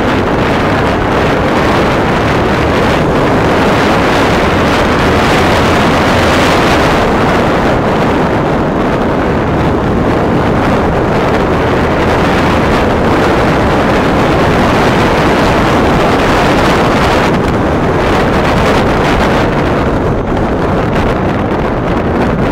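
Wind rushing over the microphone of a Bajaj Pulsar 180 motorcycle riding at speed, mixed with its single-cylinder engine running steadily underneath; loud and continuous.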